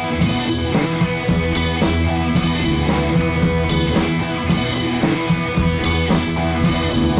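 Background music with drums and guitar and a steady beat.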